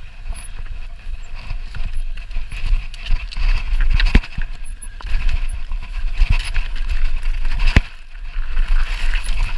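Mountain bike riding down a rocky trail: tyres crunching over stones and the bike rattling, with several sharp knocks as it hits rocks, over a constant low rumble.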